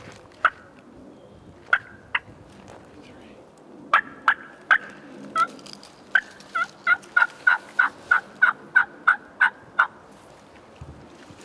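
Turkey yelping: a few scattered sharp yelps, then from about four seconds in a run of about a dozen yelps at roughly three a second that stops near the end.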